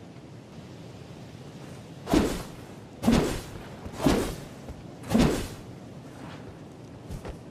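Katana sword swished four times, about one swing a second, each a sharp whoosh that fades quickly. A faint click near the end.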